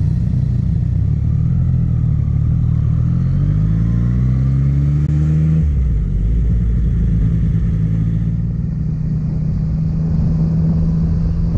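Motorcycle engine heard from the bike while riding: its note rises steadily for about five seconds, changes abruptly, then holds steady, over a constant rush of road and wind noise.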